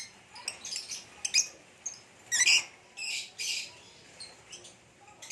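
Lovebirds chirping and squawking: short high chirps, then a loud harsh call about two seconds in, followed by two longer calls around three seconds in.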